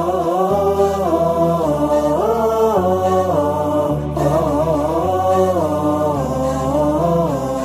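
Wordless interlude of an Arabic nasheed: a chanted melody without words over a low drone that changes pitch in steps about once a second.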